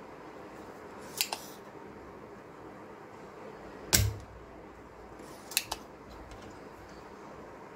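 Spring-loaded desoldering pump (solder sucker) at work on a capacitor's solder joints: a sharp double click about a second in, a loud snap with a low thump about four seconds in as the plunger fires to suck out molten solder, and another double click a second and a half later.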